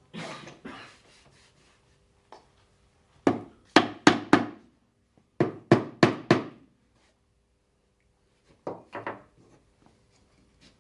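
Hammer knocking on the wooden parts of a mortise-and-tenon display shelf, tapping the joints home: two runs of four sharp strikes, then a few lighter taps near the end. A short scrape of wood on wood at the start.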